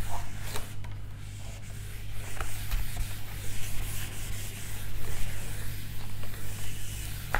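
Handheld whiteboard eraser rubbing back and forth across a whiteboard, wiping off marker writing, in uneven strokes over a steady low hum.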